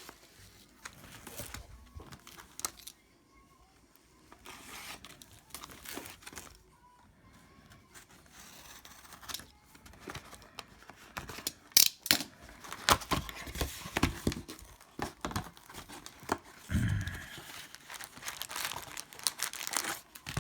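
Plastic wrapping and packaging being torn and crinkled by hand while a hockey card hobby box is opened. Sparse and quiet at first, with denser, louder crinkling in the second half.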